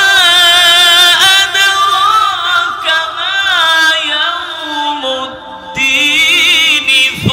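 A male qari reciting the Quran in melodic tajweed style, holding long ornamented notes with wavering melismatic runs. The voice sinks lower and softer about five seconds in, then rises again into a quick wavering ornament.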